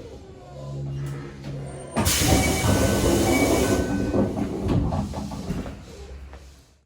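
Toei 5300 series subway car, a sudden loud hiss of compressed air about two seconds in that fades away over the next few seconds, with a low steady hum before it.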